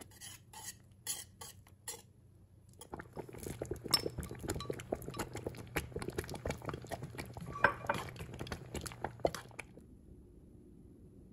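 A wire whisk clinking against a steel pot in quick, regular strokes as it stirs rice and water, then, after a short pause, a denser run of clinks and scrapes as chopsticks stir thick congee against the pot. A low steady hum runs underneath and is all that remains near the end.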